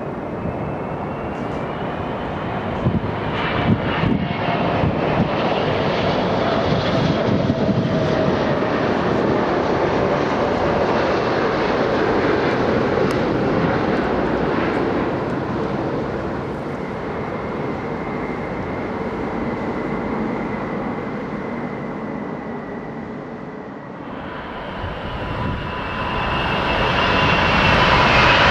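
Airbus A380 jet engines passing close on approach and landing: a steady jet roar with a high whine that bends slowly in pitch. About four seconds before the end the sound changes abruptly to a second A380 approaching, its roar growing louder.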